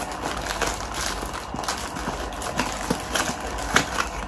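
Plastic wrapping and a small cardboard box being handled: crinkling with irregular light clicks and taps, the sharpest near the end.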